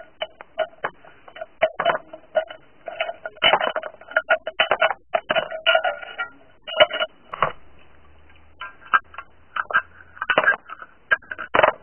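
Tin snips cutting a thin tin cup into small pieces: sharp metal snips in quick, irregular runs, several a second.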